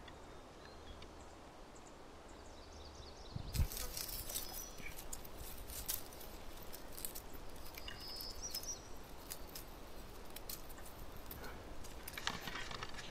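Rustling and light clicking of leaves and twigs close to the microphone as huckleberry bushes are picked through, starting with a thump about three and a half seconds in.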